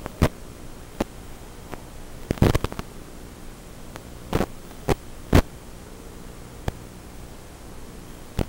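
Steady electrical hum with several sharp crackles of static, loudest about two and a half and five seconds in, from the audio track of an analog FPV video-link recording.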